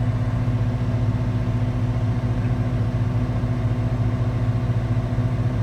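Heavy mining machine's diesel engine running steadily, a constant low hum that holds the same pitch throughout.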